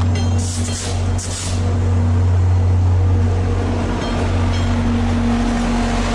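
VIA Rail F40PH-2 diesel locomotive trailing on the end of a passenger train going by, its engine running with a loud, steady low drone. Two brief hissing bursts come in the first second and a half.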